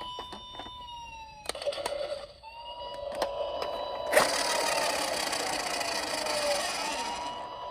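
A toy police car's electronic siren wailing, holding a steady high tone, then dipping down in pitch and rising again. Sharp plastic clicks and knocks come early on, and a loud rattling noise starts about four seconds in and stops shortly before the end.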